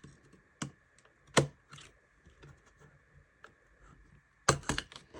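Sharp clicks and knocks from a laptop drive being handled and slid in its bay: a few scattered clicks, a loud one about a second and a half in, and a quick run of clicks near the end.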